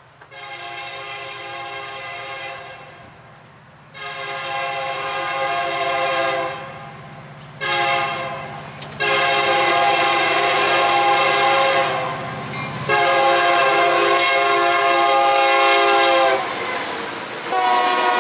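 Union Pacific SD70M's Nathan K3LA three-chime air horn sounding the grade-crossing signal: two long blasts, a short one, then a long one held for several seconds, over the low rumble of the approaching diesel locomotives. Near the end the freight cars are passing, and the wheels clatter on the rails.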